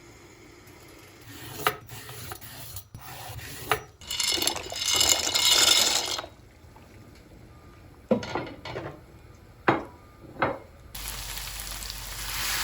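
Kitchen cooking sounds in quick succession: utensils scraping and knocking against a pan or pot, with two stretches of steady hissing, the louder one near the middle.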